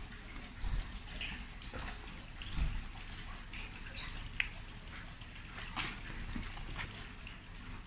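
Steady running water, like a tap left running, with scattered light clicks and two soft low thumps in the first three seconds.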